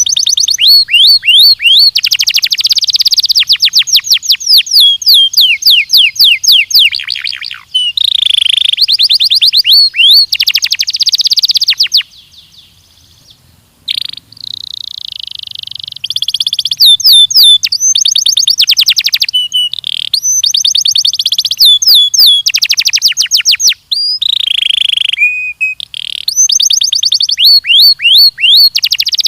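Belgian canary singing, with long rapid trills of quickly repeated falling notes. The song breaks off for about two seconds near the middle, then resumes.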